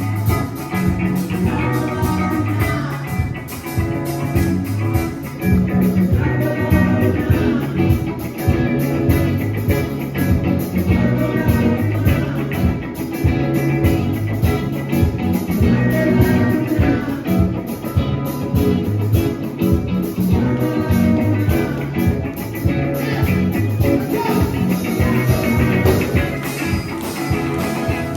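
Band music with guitar, bass and drums playing a steady beat, with a voice singing at times.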